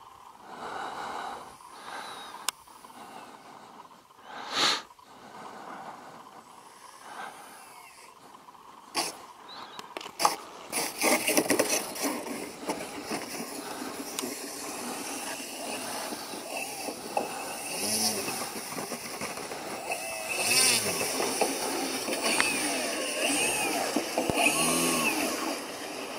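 Radio-controlled model airplane's motor and propeller running as the plane comes down and taxis on the snow. The sound grows louder about ten seconds in, and its pitch rises and falls with the throttle toward the end.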